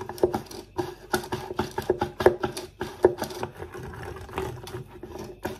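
Whisk stirring jelly crystals into hot water in a glass Pyrex jug, clinking and scraping against the glass several times a second in an uneven rhythm.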